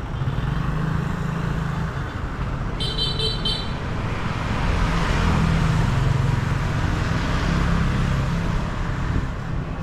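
Street traffic: a steady low engine rumble of vehicles, with a short high-pitched beeping about three seconds in.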